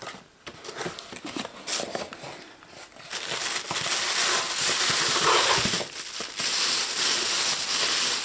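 A mailed package being opened by hand: scattered crinkles and rustles of the packaging, then from about three seconds in a loud, continuous crinkling and rustling as the wrapping is worked open, with a short break about six seconds in.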